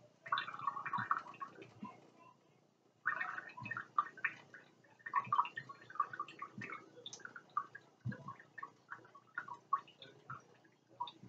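Cat drinking from a kitchen sink faucet: quick, irregular wet lapping and splashing, with a short pause about two seconds in.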